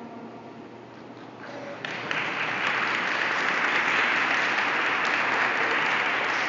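A children's choir's final chord dies away in a marble rotunda. Applause breaks out about two seconds in and keeps going steadily.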